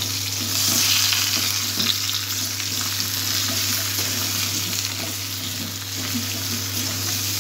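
Potato chunks sizzling in hot oil in a metal kadai while a spatula stirs and turns them, the sizzle loudest about a second in. A steady low hum runs underneath.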